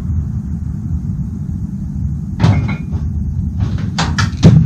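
Steady low rumble with sharp knocks and clacks over it: one about halfway, then a quick run of four or five near the end, the last the loudest.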